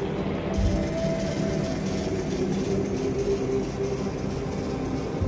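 Steady mechanical drone with a few held hum tones, vehicle-like, and a brief low thump about half a second in.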